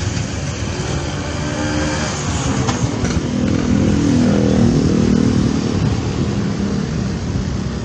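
Motor vehicle driving along a road: steady engine and road rumble, with an engine note that swells and then fades about halfway through.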